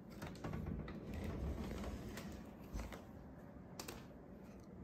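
Faint soft clicks and low rumbling as a sliding door is eased open along its track.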